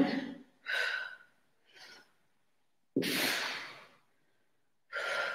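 A woman breathing hard from exertion during fast leg lifts: four separate breaths, the loudest a sharp exhale about three seconds in.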